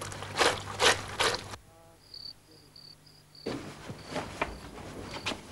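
Wet clothes scrubbed by hand in a washing basin, three quick strokes. Then crickets chirping in short, evenly spaced chirps, with soft rustles and knocks near the end.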